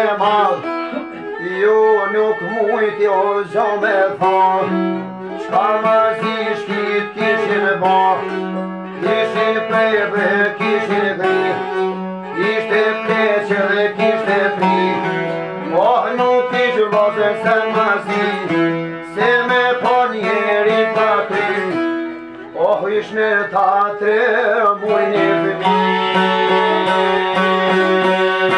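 Albanian folk song played live on a long-necked plucked lute and a violin, with singing; the melody comes in phrases with brief breaks and sliding notes.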